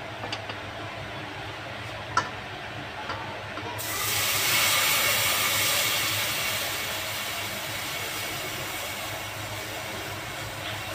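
Milk poured from a steel pot into a hot kadhai of roasted butter-and-flour roux: a loud hiss and splash starts suddenly about four seconds in as the milk hits the hot pan, then slowly fades as the pan fills.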